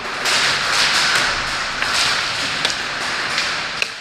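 Steady rustling noise with a few sharp taps scattered through it.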